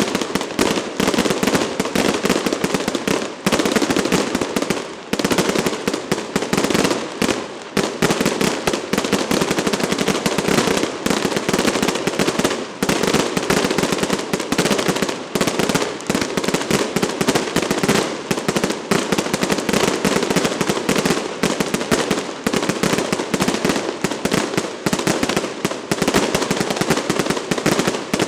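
Masses of firecrackers going off in a dense, unbroken rapid crackle of bangs that never lets up.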